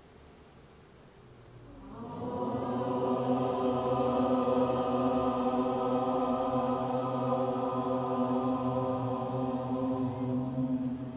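A group of voices toning together, holding one long, steady chant-like note. It swells in about two seconds in and holds to the end.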